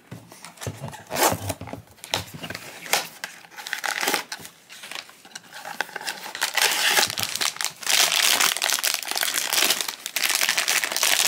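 Cardboard blind box handled and opened with scattered taps and scrapes, then the sealed foil bag inside crinkling as it is handled and torn open, the crinkle becoming dense and steady from about six seconds in.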